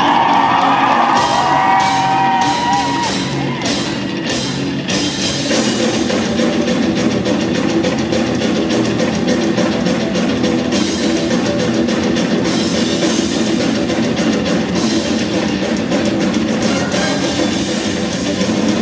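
Live heavy-metal music played by amplified cellos and a drum kit. A sustained cello melody opens, and about five seconds in it breaks into a fast, dense heavy section with drums.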